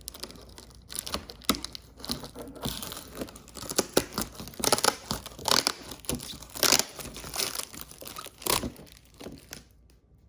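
Cardboard box being opened by hand, its flaps and the packaging inside rustling and crinkling in irregular bursts, busiest in the middle and dying away near the end.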